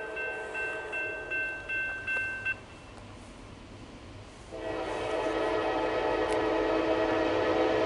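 Railroad crossing bell dinging rapidly, about two and a half strokes a second, then stopping about two and a half seconds in once the gates are down. About four and a half seconds in, the approaching Norfolk Southern C44-9W locomotive's air horn sounds one long, steady chord as a grade-crossing warning.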